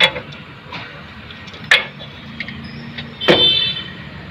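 Metal knocks as a rear axle shaft is slid into its axle housing: three sharp knocks with small ticks between, the loudest about three seconds in, ringing briefly.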